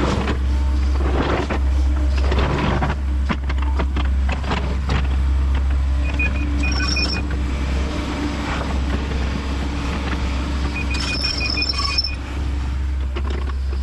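Kobelco SK210 hydraulic excavator's diesel engine running steadily under working load, with scattered knocks and clatter. A short run of high beeps sounds twice, about six and eleven seconds in.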